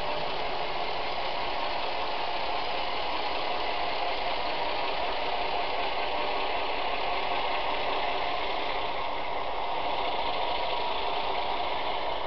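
Steady diesel engine sound from the onboard speakers of two Bowser Alco model locomotives running together, mixed with the running noise of the models and their train on the track.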